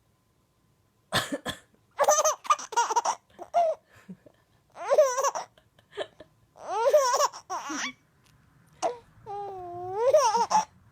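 A woman clears her throat with a short cough about a second in, and a baby laughs in several bursts. A longer drawn-out laugh comes near the end.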